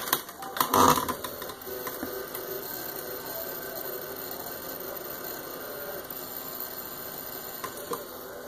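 Desktop computer running, its exposed hard drive spinning with a steady mechanical hum and faint steady tones. A few loud knocks come about a second in.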